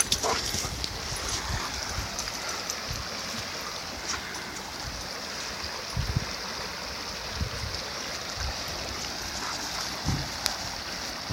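Shallow, rocky mountain creek rushing and gurgling over stones, a steady flowing sound, with a few dull low thumps now and then.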